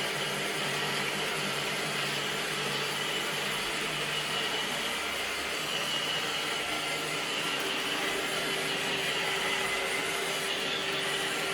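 iRobot Roomba 650 robot vacuum running steadily while cleaning, a constant hum with a high whine over it.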